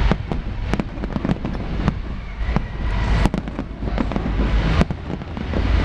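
Large aerial fireworks display bursting in rapid succession: many sharp bangs and crackles over a continuous low rumble, with two especially loud bangs about three and five seconds in.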